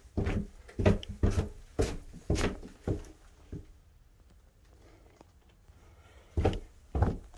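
A series of short thumps or knocks, about two a second, that stop for about three seconds and start again near the end.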